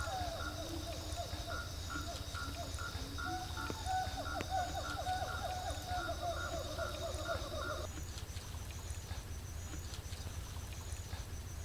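A chorus of frogs and insects: rapid repeated chirping calls over a steady high buzz and a low steady rumble. Most of the chorus cuts off abruptly about eight seconds in, leaving the rumble and fainter calls.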